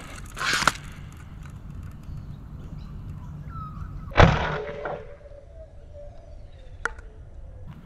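A Sabre M20S foam-dart sniper blaster, driven by a heavy 26 kg spring, fires once about four seconds in: a sharp crack that dies away within a second. A faint sharp click comes near the end.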